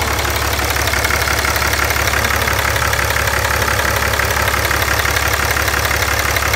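6.7 Cummins inline-six turbodiesel idling steadily, running with new exhaust manifold and EGR gaskets and no longer leaking exhaust.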